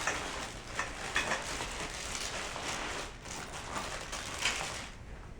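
Rustling and scraping of a fabric carrying bag being handled and opened, with a few sharper clicks among the rustle.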